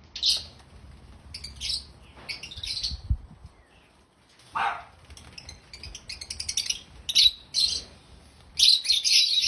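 Lovebirds chirping in short bursts of rapid, shrill chatter, with one lower call about halfway through.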